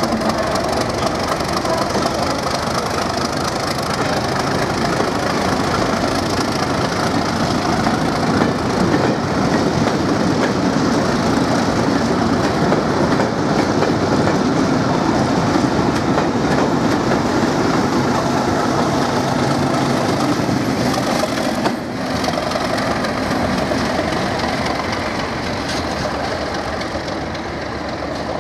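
Class 37 diesel locomotives, with English Electric V12 engines, running past with a rake of test coaches. Engine noise and wheels rolling on the track make a loud, continuous sound that dips about three-quarters of the way through and then slowly fades.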